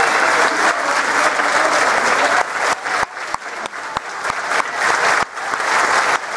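Audience and performers applauding: a dense roll of clapping that thins to more separate claps about halfway through, then fills out again near the end.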